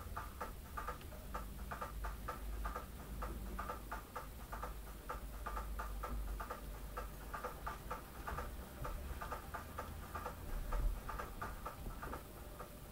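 Needle and thread drawn through genuine leather while hand-stitching a steering-wheel cover, making a quick, uneven run of small ticks, three or four a second.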